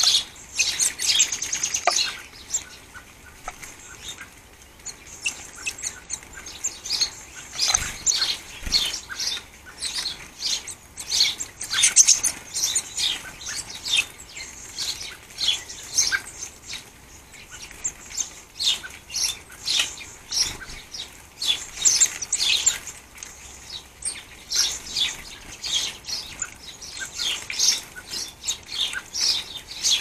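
Blue tits chirping and calling close by, short high notes coming several a second throughout, with a couple of soft thumps about eight seconds in.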